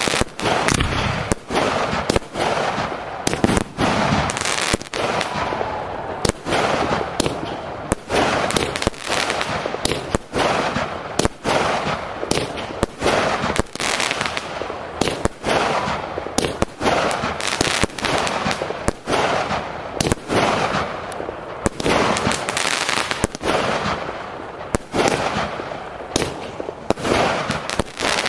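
Aerial fireworks display: shells bursting in quick succession, a dense, unbroken run of bangs with crackling between them.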